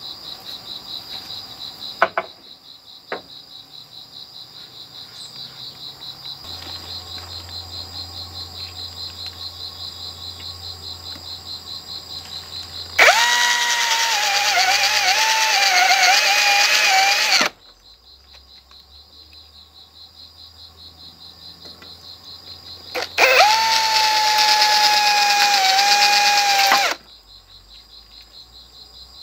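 A cordless drill runs into bamboo twice, each run about four seconds, its whine wavering as it loads up. A steady pulsing insect chorus goes on underneath, with two sharp knocks about two and three seconds in.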